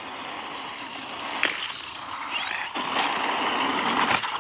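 RC car driving over gravel, its tires hissing and crunching, with one sharp knock about one and a half seconds in. It gets louder near the end, then cuts off suddenly.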